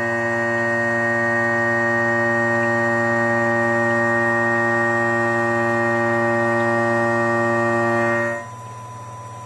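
CNC machine's motors running with a steady, even whine, cutting off abruptly about eight seconds in and leaving a faint hum.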